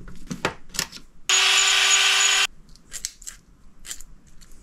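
A small electric power-tool motor whirs steadily at one pitch for just over a second, starting about a second in and cutting off abruptly. Light clicks of small metal and plastic parts being handled come before and after it.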